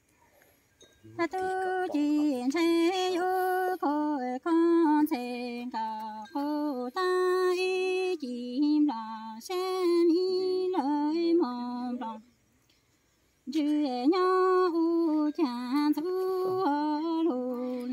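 A woman's voice singing Hmong chanted verse, unaccompanied, in long held notes that waver in pitch. It starts about a second in, breaks off for a breath about twelve seconds in, then takes up again.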